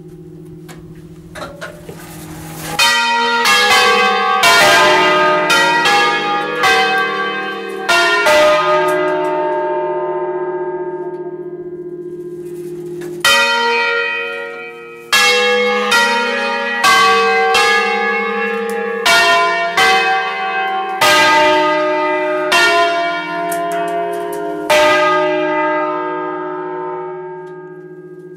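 A five-bell church peal in E-flat, cast by Achille Mazzola of Valduggia in 1951, ringing a melodic 'concerto' sequence played automatically from its electronic control unit, heard close up inside the bell chamber. A fast run of bell strokes starts about three seconds in. Around ten seconds the strokes pause and the bells ring on and fade, then a second run starts. Near the end the bells ring on and fade again.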